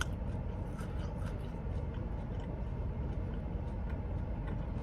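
Faint chewing and wet mouth clicks over a steady low rumble.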